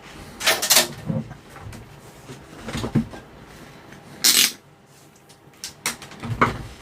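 Handling noises: a few short rustles and knocks of parts and tools being picked up and moved, with one longer hissy rustle a little past the middle.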